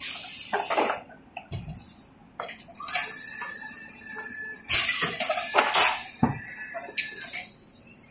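Toilet-roll rewinding machine at work: irregular clanks and knocks from its mechanism, with a short high whine twice and loud rushing bursts about five to six seconds in, as a finished tissue log is discharged onto the table.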